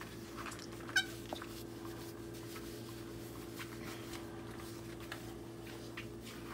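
Quiet dishwashing at a kitchen sink: a few faint clicks and handling sounds over a steady low hum, with one short sharp squeak about a second in.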